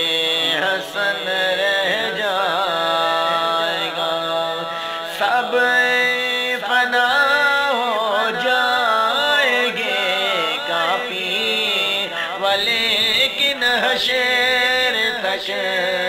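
A solo voice singing an Urdu Islamic naat, long wavering drawn-out notes over a steady low drone.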